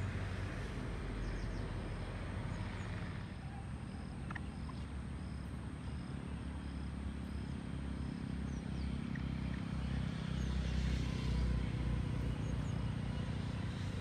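Steady low outdoor rumble with a few faint, short high chirps from small birds over it.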